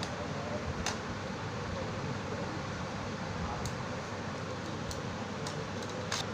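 Steady room hum of a fan or air conditioner, with a few small, sharp clicks scattered through it.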